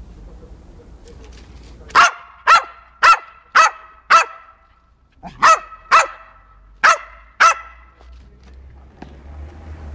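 Jack Russell terrier barking: nine short, sharp barks in two runs, five in quick succession starting about two seconds in, then a brief pause and four more.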